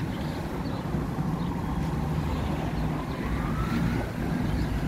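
Steady road-traffic rumble, with a distant emergency-vehicle siren starting to wail about halfway through, its pitch slowly rising.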